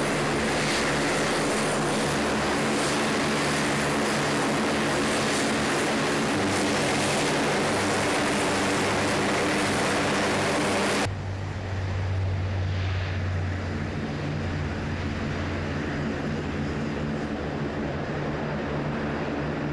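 KC-130J Super Hercules turboprop engines running: a steady hum of propeller tones under a loud rushing hiss. About eleven seconds in, the hiss drops away abruptly, leaving a quieter, deeper drone.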